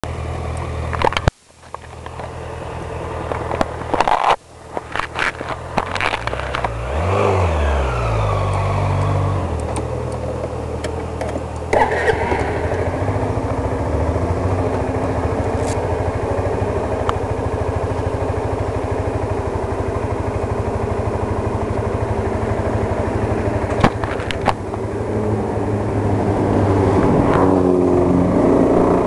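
Suzuki Skywave 250 scooter's single-cylinder four-stroke engine, with a few knocks and clicks in the first seconds, the revs rising and falling briefly around seven seconds in, then idling steadily. Near the end it grows louder as the throttle opens to move off.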